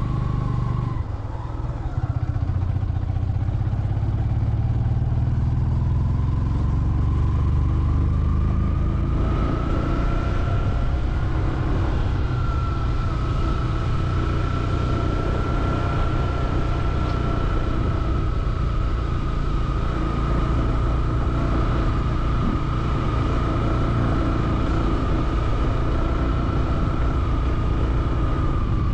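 Motorcycle engine running steadily as the bike climbs a mountain road, with a short dip in level about a second in. The engine pitch then rises for a few seconds and holds steady.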